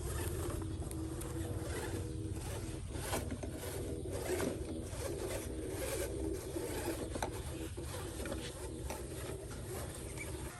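Small RC car's electric motor and gearbox whining, the pitch wavering as the throttle changes, with frequent scrapes and crackles from the wheels over rough ground.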